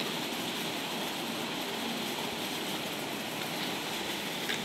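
Steady fizzing hiss of baking soda and vinegar foam bubbling on a model volcano, the reaction still giving off gas.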